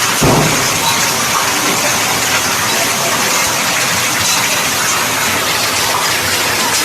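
Heavy hail storm downpour: a steady, loud rushing of rain and hail, with one low thump about a quarter of a second in.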